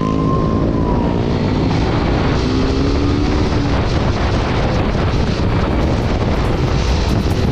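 Motorcycle engine running while riding, its note shifting in pitch during the first few seconds, under heavy wind rush on the microphone.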